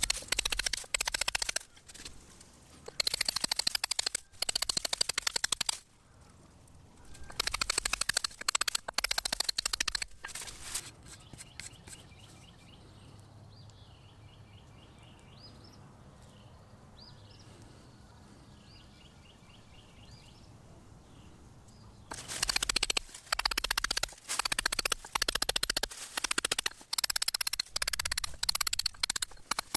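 Hand-forged steel chisel struck rapidly with a hammer, its point chipping into rock: quick runs of sharp metallic blows, three short runs in the first ten seconds and another near the end. In the long pause between them a bird calls repeatedly.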